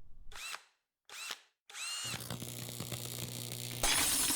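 A small power tool's motor whirs steadily for about two seconds, ending in a louder rasping stretch. Before it come two short rising chirps.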